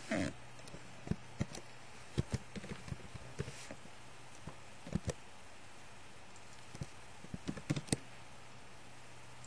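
Computer keyboard keys and a mouse clicking in irregular clusters as a word is typed, over a steady low hum.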